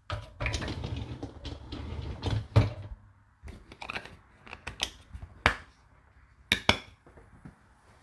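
Whirlpool dishwasher's loaded rack of pans rattling and clattering for about three seconds, with a loud knock near the end. Then come several sharp plastic clicks at the door, among them the detergent dispenser lid snapping shut over a tablet.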